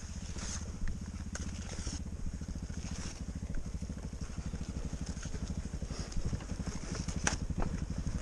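Motorcycle engine idling steadily, an even rapid beat, with a few faint clicks.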